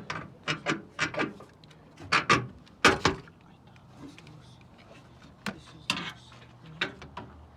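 Scattered sharp clicks and knocks, about ten in all, from hand tools and metal parts being handled while taking apart a truck's front end, bunched in the first three seconds and again near the end.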